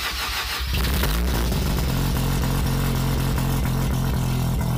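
Mazda FD RX-7's 13B-REW twin-turbo rotary engine starting: rough cranking noise, then the engine catches under a second in and settles into a steady, evenly pulsing idle.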